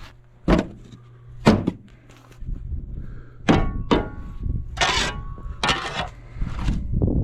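Split firewood knocking and clanking as it is handled and loaded into a wood stove. Two heavy thunks come about a second apart, then two sharp clanks with a brief metallic ring, then rough scraping rustles.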